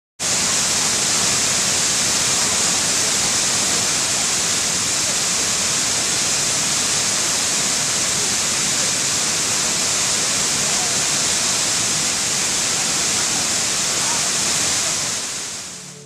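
Large waterfall: a steady, hissy rush of falling water that fades out over the last second or so.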